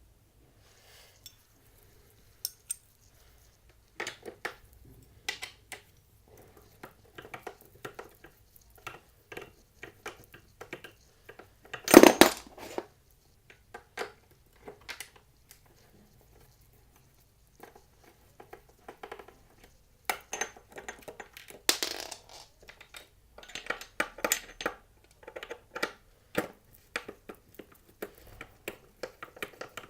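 Small metal skateboard hardware and a skate tool clicking and clinking as bolts and nuts are handled and fitted to the trucks, with a louder clatter about twelve seconds in.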